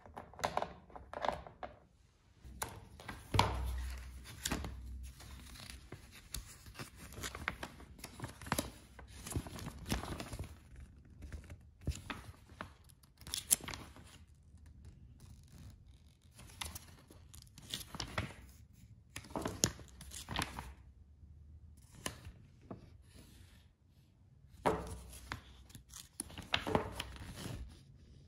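Handling noise: a plastic RC car body and spoiler being fitted and set down, then the glossy paper pages of an instruction manual being turned, giving irregular rustles, clicks and a few soft thuds.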